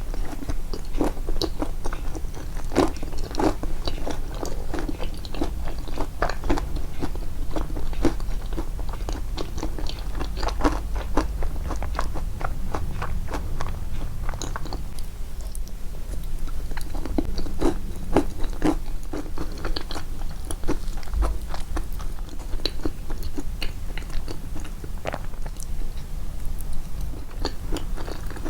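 Close-miked chewing and biting of walnut and banana yoghurt cake: irregular wet mouth clicks and small crunches, with a steady low hum underneath.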